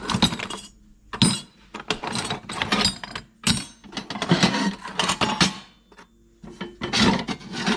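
Steel plate offcuts clanking and scraping against each other as a hand rummages through a drawer of scrap metal, in several short bursts with brief pauses.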